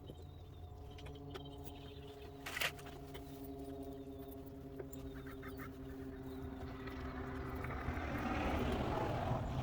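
Scattered light clicks and taps of tools working a door lock, one sharper click about two and a half seconds in, over a steady hum. A rushing noise swells up near the end.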